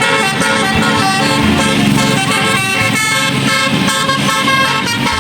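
Bus telolet horns, electric multi-tone musical horns, playing a quick stepped tune with several tones sounding at once, over the low hum of the buses.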